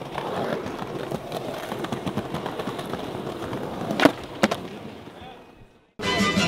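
Skateboard rolling over pavement, with voices in the background; about four seconds in come two sharp clacks of the board half a second apart, then the sound fades out.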